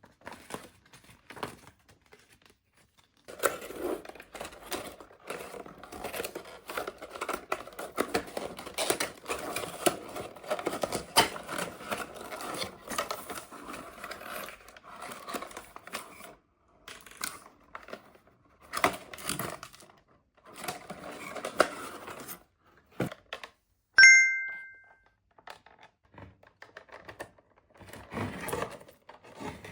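Plastic toy packaging being crinkled and torn open by hand, a dense run of crackles and rustles with short pauses. About three-quarters of the way through, a short bright ringing tone sounds once, the loudest thing, and dies away within a second.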